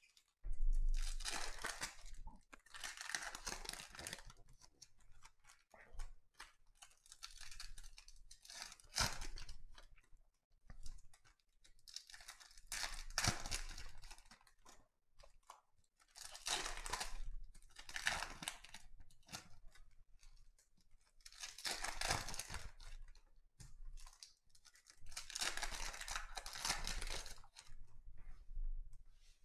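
Trading-card pack wrappers being torn open and crinkled, one after another, with the cards handled between them: a string of tearing, crinkling bursts a second or two long, every few seconds.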